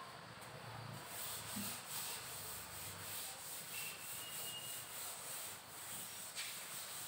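Green chalkboard being wiped with a cloth: faint, repeated rubbing strokes, starting about a second in.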